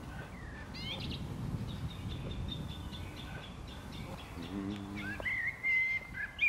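Small birds chirping outdoors over a low steady rumble; near the end a clear whistle, held and stepping slightly in pitch, is the loudest sound.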